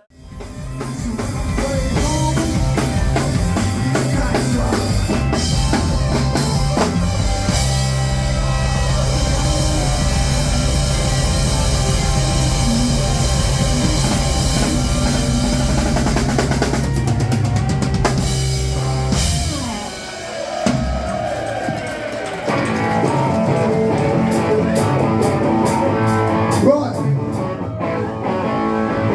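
Rock band playing at full volume: drum kit, bass and electric guitar. The music thins out briefly about two-thirds of the way in, then starts up again.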